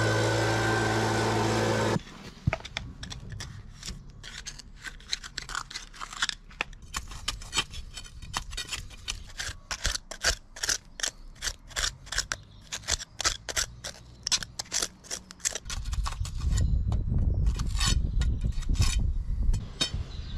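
A handheld petrol leaf blower running steadily, stopping abruptly about two seconds in. Then many short scrapes and clicks as packed mud and grit are dug out of blocked patio drainage holes.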